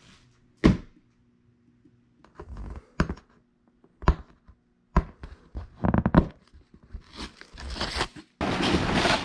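A LEGO set's cardboard box being opened by hand: one loud thump, then several sharp snaps and tearing as the tape seals and flaps give. From about eight seconds in there is a dense, steady rustling and crinkling of the plastic bags of bricks inside.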